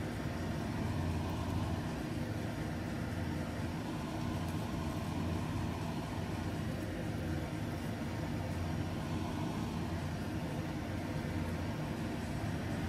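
Steady low mechanical hum that runs unchanged throughout, strongest in its low tones, from a running kitchen machine such as an extractor fan.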